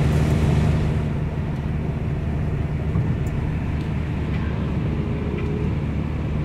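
A Tata Indigo eCS at about 80 km/h on a highway, heard inside the cabin: its engine and tyre and road noise make a steady low drone.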